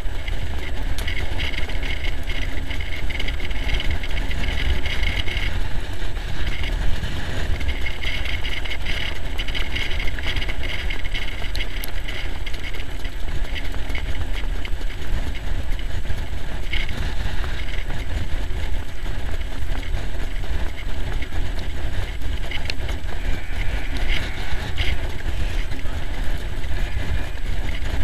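Wind buffeting the microphone of a camera on a moving sulky as a trotter pulls it at speed round the track: a continuous low rumble with a rushing hiss over it.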